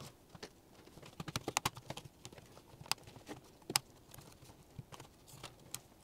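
Light plastic clicks and snaps as the thin plastic key-surround lattice of a Dell Latitude E7450 keyboard is pried up with a plastic guitar pick and fingers, its clips popping loose. A quick run of small clicks comes about a second in, then a few sharper single snaps spread through the rest.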